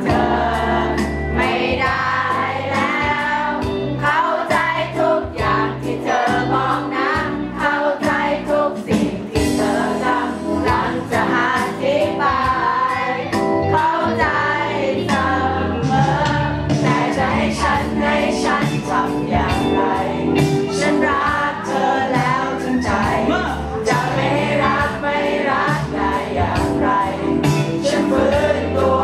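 A man singing a Thai pop song into a handheld microphone over a backing track with a steady beat and bass, amplified through the venue's speakers.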